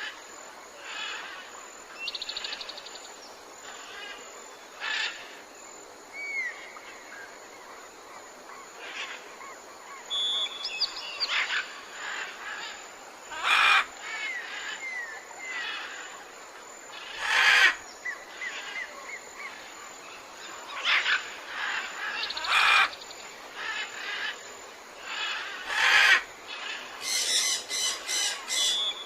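Jungle ambience: several birds calling over a steady background hiss, with short whistled notes and a few loud harsh calls, then a rapid run of calls near the end.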